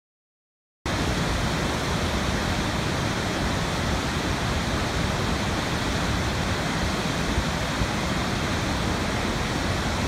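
Large waterfall's steady rush of falling water, cutting in abruptly about a second in.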